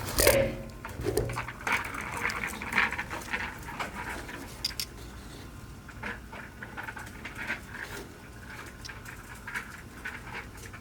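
Handling noises of a replacement in-tank fuel pump and its parts being fitted to the sending unit: irregular clicks, taps and rustles, with a sharp knock at the start and the busiest handling in the first few seconds.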